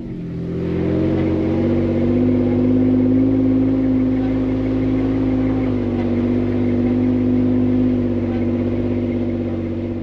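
Recovery vehicle's engine running steadily under load while towing a pickup truck on a line up a slushy snow grade, its pitch dipping slightly about six seconds in.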